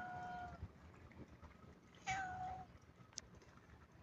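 A cat meowing: the end of one meow in the first half-second, then a second short meow about two seconds in, each sliding down in pitch and then holding steady.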